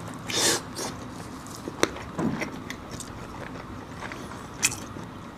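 Close-up eating sounds: a person biting and chewing food. There is a crisp, noisy burst about half a second in and sharp single clicks near two seconds and near the end.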